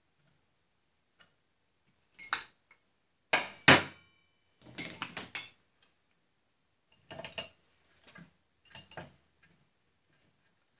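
A steel flywheel puller bar and its bolts clink and clank against a small engine's cast flywheel as the puller is set in place, several separate metallic knocks. The loudest clank, about three and a half seconds in, rings briefly.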